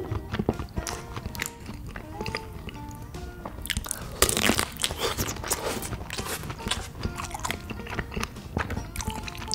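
Close-miked chewing and mouth sounds of a person eating curry and rice, with a bite into a smoked kielbasa sausage about four seconds in, the loudest moment.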